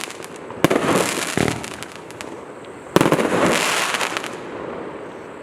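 Firework battery (a 34-shot consumer cake) firing its last shots. There are two sharp launch bangs, about half a second and three seconds in, each followed by a second or so of dense crackling, which then dies away near the end.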